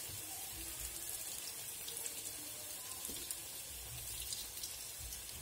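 Hot oil sizzling steadily around buñuelos de viento (choux-pastry fritters) deep-frying in a small pan: a fine crackling hiss.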